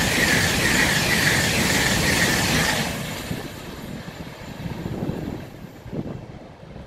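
LNER Class 801 Azuma train passing through at speed, a loud rush of wheels on rail and air. About three seconds in, the noise drops sharply as the last coach clears, then trails away.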